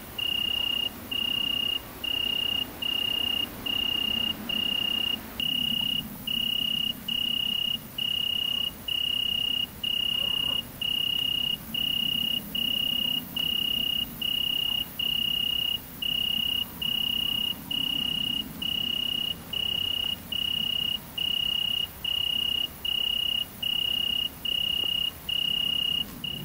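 A cricket singing: a clear, pure high-pitched trill broken into short, evenly spaced pulses with brief gaps, repeating steadily.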